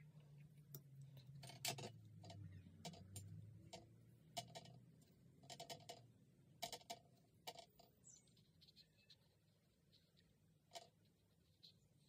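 Faint, irregular light clicks and taps from a paintbrush and watercolour paint tin being handled. A low hum in the first few seconds fades out.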